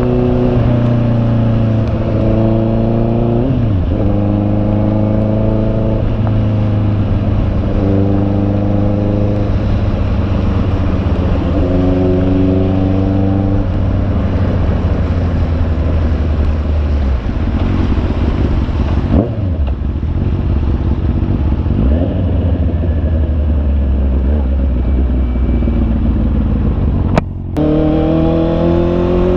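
Honda CB650R's inline-four engine pulling through the gears: the pitch climbs in each gear and drops at each upshift, several times over, then settles into a steadier drone. The sound cuts out briefly near the end.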